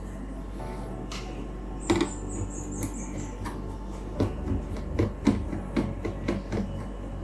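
Scattered clicks and knocks of a screwdriver and plastic casing being handled while an HP 22 all-in-one PC is taken apart, growing busier in the second half, with a brief high squeal about two seconds in.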